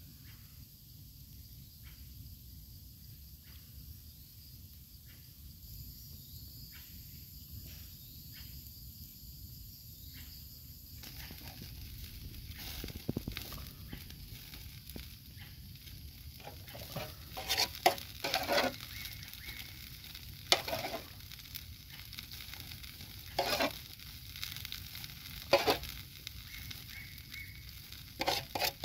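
Food sizzling on a hot stone, the hiss growing about a third of the way in, with sharp clicks and knocks of a utensil scattered through the second half.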